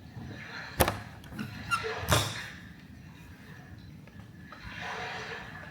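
Small knocks and clicks of objects being handled on a study desk: a sharp click about a second in, a few light ticks, then a louder knock about two seconds in, over a faint steady background hiss.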